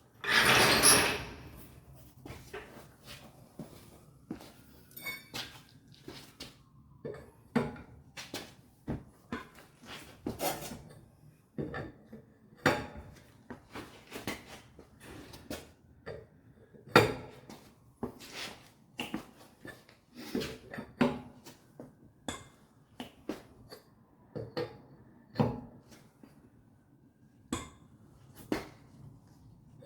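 Irregular metallic clinks and knocks from hand tools and wheel parts being handled while a tire is remounted. There is a short, loud rush of noise right at the start.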